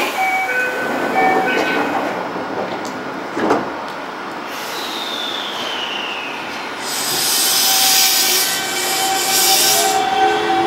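Toei 5300-series electric train pulling out of the platform. A single knock comes about three and a half seconds in, then a falling tone. From about seven seconds a hiss swells and the motors start up with a rising whine.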